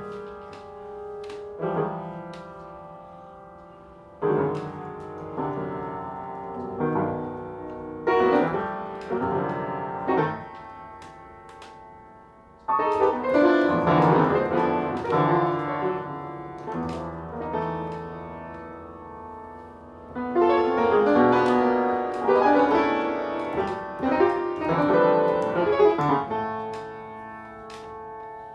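Solo piano playing: loud chords struck hard and left to ring and fade, with flurries of notes between them. The playing grows fuller and louder about halfway through and again near the end.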